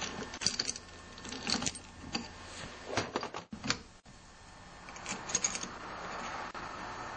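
Irregular light metallic clicks and clinks as a connecting rod with its piston is handled, fitted and its cap worked onto a Tecumseh small-engine crankshaft by hand.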